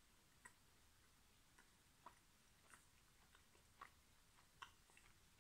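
Faint chewing of a doughnut: small, sharp mouth clicks at irregular intervals, a few per second at most.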